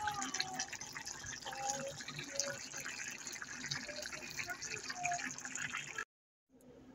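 Pork adobo in its soy sauce and Pepsi sauce bubbling at a simmer in a pan, a dense crackle of small popping bubbles. It cuts off abruptly near the end.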